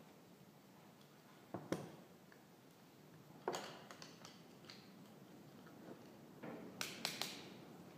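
A few light, sharp metallic clicks and taps from handling a piston fitted with its rings in a ring compressor: one about a second and a half in, another at about three and a half seconds, and a quick cluster near seven seconds.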